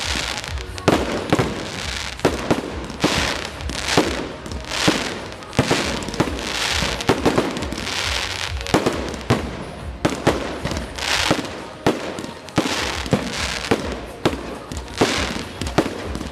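Aerial fireworks display: a rapid run of shell bursts, sharp bangs coming about one to two a second, with hissing between them.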